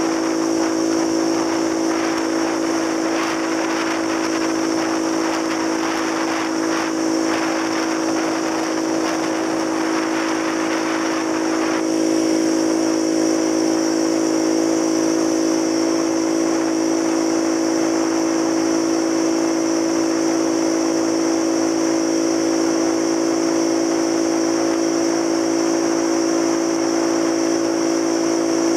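Small scooter engine running steadily at a cruising pace, heard from the rider's seat, with gusty wind noise on the microphone that eases off suddenly about twelve seconds in.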